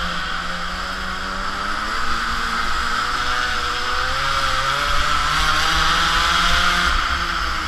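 Mini moto's small two-stroke engine running hard, its buzzing pitch held low through a corner, then rising about two seconds in as the bike accelerates onto the straight and staying high. Wind rushes and buffets over the onboard microphone throughout.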